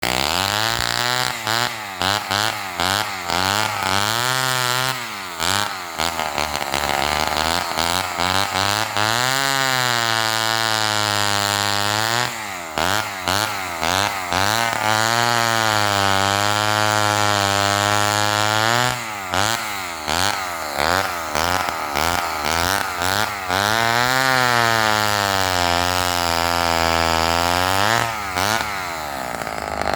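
Homelite XL-12 single-cylinder two-stroke chainsaw with a 20-inch bow bar, revved in quick throttle blips and then held at high speed for several seconds at a time, three times; in each long run the engine pitch sags in the middle and climbs back.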